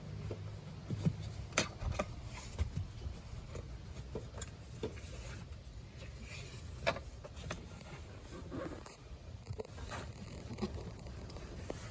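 Scattered light knocks, scrapes and rustles of a car's rear seat cushion and seatbelt buckles being handled and lined up by hand.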